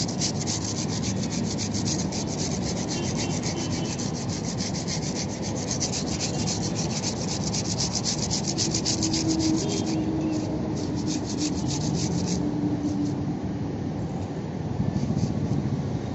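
80-grit sandpaper rubbed by hand over a car body panel in rapid, even back-and-forth strokes, leveling out scratches; the strokes thin out to a few scattered ones after about twelve seconds.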